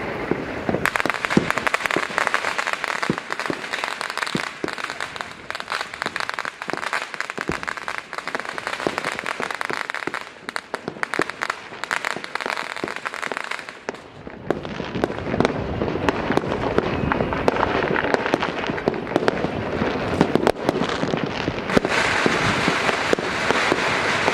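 Many fireworks going off at once, a dense run of pops and bangs over a constant crackle. It eases a little about ten seconds in and builds again from about fourteen seconds on.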